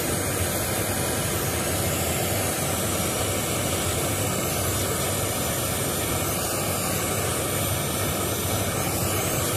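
Oxy-acetylene brazing torch flame hissing steadily as it heats the copper tubes of an air-conditioner condenser coil to braze a leak.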